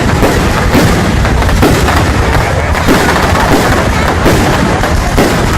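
Aerial fireworks exploding in quick succession: sharp booms roughly once a second over a continuous crackle of bursting shells.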